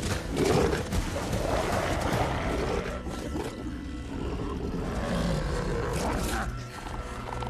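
Film fight soundtrack: giant wolves growling over a dramatic music score.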